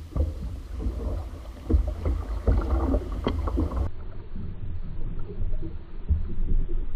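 Small boat under way through choppy water: a heavy low rumble of wind and motion on the microphone, with a run of sharp knocks in the first half as the hull hits the waves, then a duller, steadier rumble.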